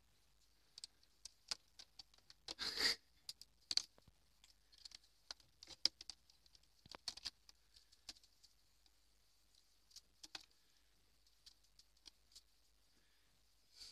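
Kitten's paws and claws patting and scrabbling at a carpeted, sisal-wrapped cat tree and a hanging toy: scattered light ticks and scratches at an irregular pace, with a longer scuffle about three seconds in.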